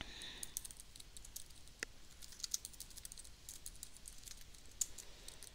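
Computer keyboard typing: faint, irregular key clicks.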